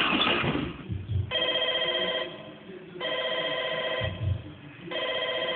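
Telephone ringing: three trilling rings, each about a second long, with short gaps between them. Soft low thumps fall between the rings.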